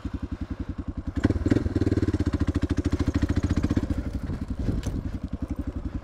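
Suzuki DR650 single-cylinder engine running with a fast, even thump, freshly started. Its revs rise about a second in as the bike pulls away.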